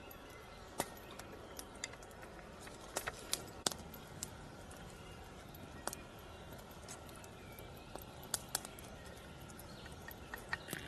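Scattered light clicks and taps, irregular and spaced out, over a steady faint background hiss.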